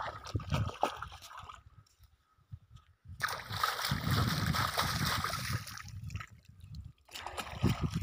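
Shallow river water splashing and sloshing as a person wades knee-deep and works a stick at a staked fishing net. The splashing stops after about a second and a half, a stretch of steady hiss follows, and the splashing starts again near the end.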